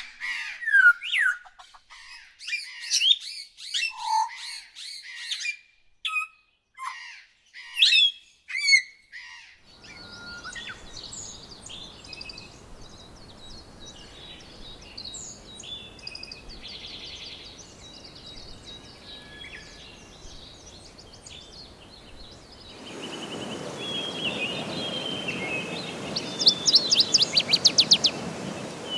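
Bird calls in three separate recordings: first loud, sharp chirps and falling whistles, then a busy mix of softer calls over a faint hiss, and from about 23 seconds in, rapid trills over louder background noise.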